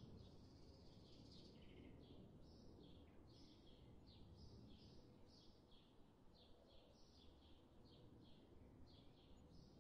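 Faint birds chirping: short, high notes repeating two or three times a second, over a faint low rumble.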